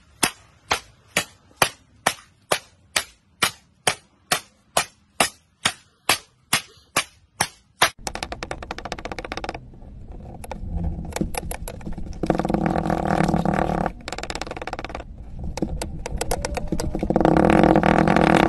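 Aluminium drink cans being crushed flat with a wooden block: a quick row of sharp, evenly spaced impacts, about two a second. About eight seconds in, kinetic sand crunches as a wooden pestle presses it down in a drinking glass, louder in two stretches near the middle and near the end.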